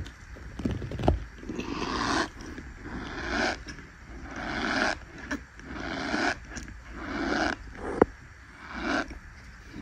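A hand pressing and squeezing into a packed tray of soft white powder, crunching and squeaking with each press, about one press a second. A single sharp tap comes about eight seconds in.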